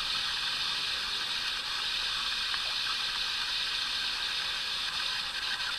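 Steady thunderstorm rain falling: an even hiss.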